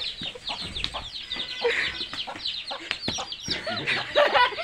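A brood of young chicks peeping, many shrill falling chirps overlapping rapidly as the chicks are chased and caught by hand. A few lower hen calls join in about four seconds in.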